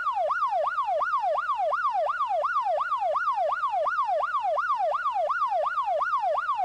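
Police car siren in fast yelp mode, its wailing tone sweeping up and down about three times a second.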